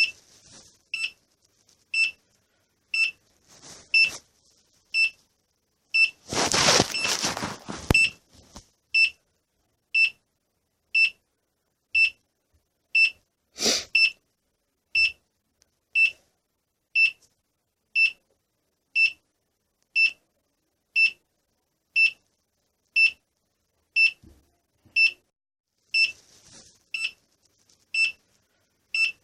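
Electronic beeper giving a short, high, steady-pitched beep about once a second, over and over. About six seconds in, a noisy burst lasts roughly two seconds, and a sharp click comes about halfway through.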